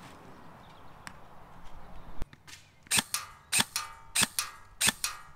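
KWA KM4 airsoft rifle firing BBs in single shots, a sharp crack about every 0.6 s, starting about three seconds in. Before that there is only quiet open-air ambience and one faint click.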